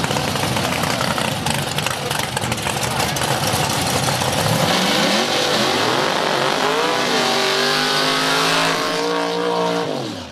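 Chevy II Nova drag car doing a burnout: about halfway in, the engine revs up and holds high while the rear tyres spin with a loud hiss, then the revs drop away near the end.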